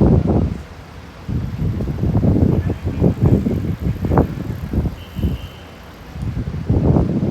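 Wind buffeting the microphone in loud, uneven gusts, with two short lulls about one second in and again around six seconds in.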